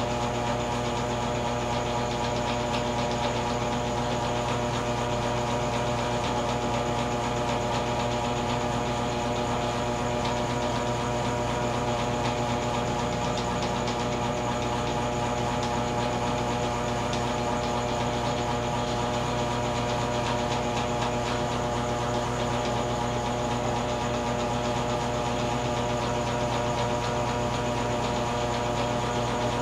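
A steady mechanical hum made of several fixed tones over a soft hiss, with no change in pitch or level, like a small motor or appliance running.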